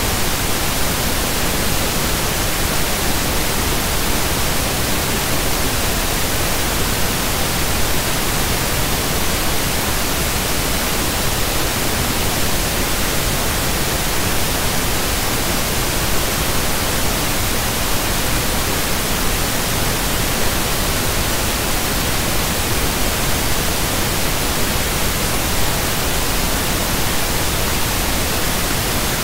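Steady, loud static hiss spread evenly from low to high pitch, with no other sound on top of it.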